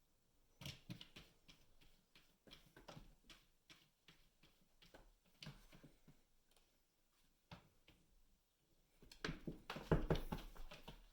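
Bengal kitten and an adult cat play-fighting: irregular scuffling thumps and taps from paws and bodies, denser and loudest about nine seconds in.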